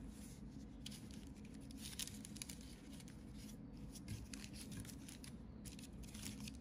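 Baking parchment crinkling and filo pastry rustling under hands pressing a rolled börek into a glass dish: a string of small irregular crackles over a low steady hum.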